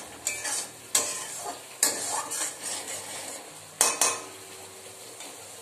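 Metal spatula stirring a bubbling mustard fish curry gravy in a metal kadai, scraping and knocking against the pan about five times over a steady sizzle.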